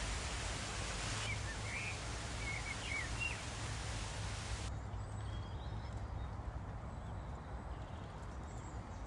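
Outdoor ambience: a steady low rumble throughout, with a hiss that cuts off sharply about five seconds in. A few short bird chirps sound between about one and three seconds in.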